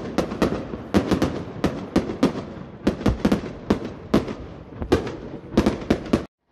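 Street fireworks and firecrackers going off in a rapid, irregular barrage, about three sharp bangs a second with echoing tails. The sound cuts off abruptly near the end.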